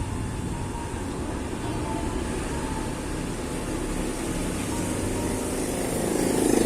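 Steady low rumble of engine-like background noise, growing louder near the end.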